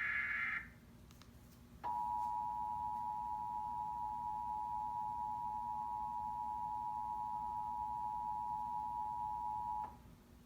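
Emergency Alert System monthly test: the last of the SAME header data bursts ends just after the start, and about a second later the EAS two-tone attention signal (853 and 960 Hz sounding together) comes on. It holds steady for about eight seconds and cuts off sharply near the end.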